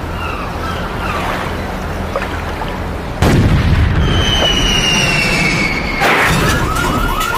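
Dramatic sound effects for the channel ident. A cannon shot booms from the warship's bow gun about three seconds in. A falling whistle follows, like a shell in flight, then a crash about six seconds in. A quick run of short rising chirps starts near the end.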